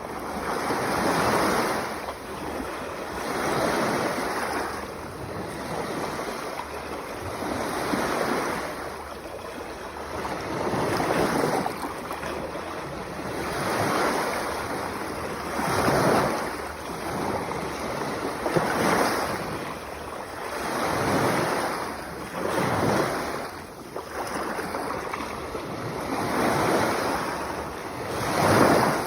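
Sea waves breaking and washing onto the shore, a new surge swelling and fading every two to three seconds.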